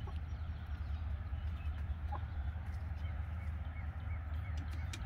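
Hens clucking softly, with a run of short calls at about three a second in the second half, over a steady low rumble.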